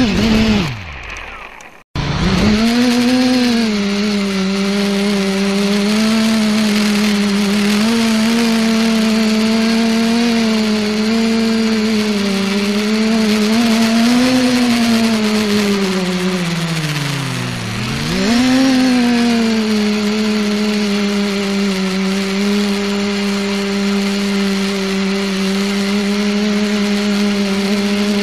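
Electric motors and propellers of the ETFD2 multicopter, heard close up from its onboard camera. The whine falls away and cuts out within the first two seconds, then starts abruptly and climbs to a steady buzzing pitch as it takes off. About two-thirds of the way through, the pitch sags and swoops back up with the throttle.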